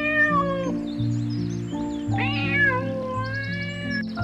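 Kitten meowing twice over steady background music: a short meow that ends within the first second, then a longer, drawn-out meow starting about two seconds in.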